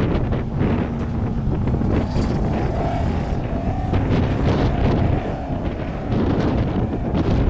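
Wind buffeting the microphone, with the engine and exhaust of a vehicle driving across sand dunes under it, its pitch wavering up and down.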